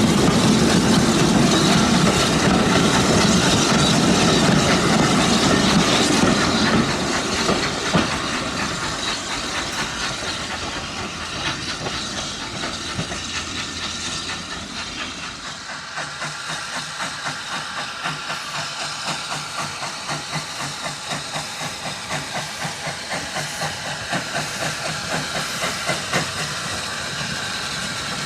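Steam locomotive hissing steam, loudest for the first several seconds, then fading into a quick, regular beat as the train moves.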